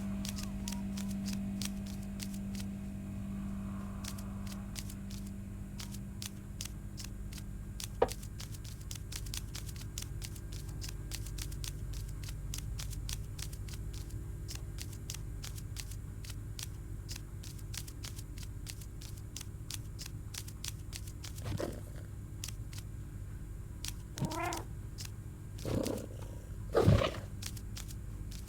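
A domestic cat meowing four times in short calls during the last several seconds, the second-to-last the loudest, over a steady low hum with faint regular clicks; a single sharp click sounds about 8 s in.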